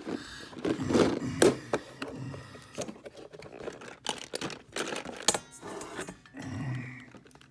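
Clear plastic compartment case of die-cast toy cars being slid across a desk and its lid opened: a run of plastic clicks, knocks and scrapes, with the little cars rattling in their compartments.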